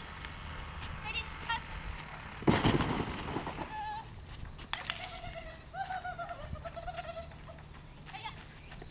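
A dog giving high, wavering whines and yelps while it runs an agility course, with a loud noisy burst about two and a half seconds in.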